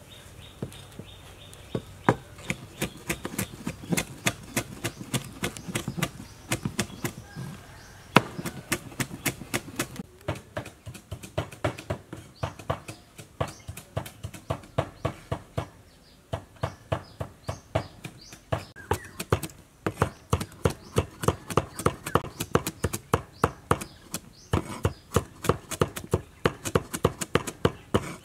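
A cleaver chopping fresh red chillies on a wooden cutting board: rapid, regular knocks of the blade on the board, several a second.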